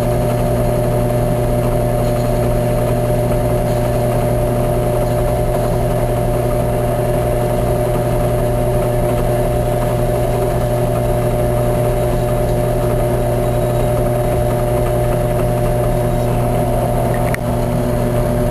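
Drill press motor running steadily with a constant hum, spinning a plastic Pinewood Derby wheel in its chuck while the wheel is scraped and shaved thin with a tool held against it. A brief click near the end.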